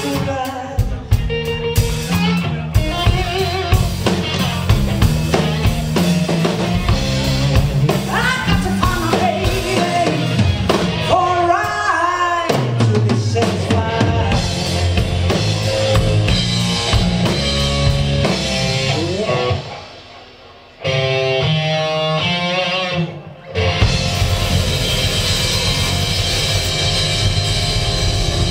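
Live blues-rock band playing: a woman singing over electric guitar, bass and a drum kit. About two-thirds through, the band drops away to a quiet passage for a few seconds, then the full band comes back in loud.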